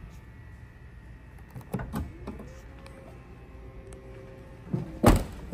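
BMW 7-Series power trunk lid closing: a few clicks, then its motor hums steadily for about two seconds. The lid shuts with a thud about five seconds in, the loudest sound.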